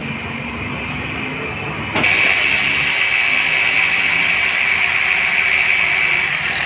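Compressed air hissing steadily, starting with a click about two seconds in and easing off shortly before the end, over the low hum of a running engine.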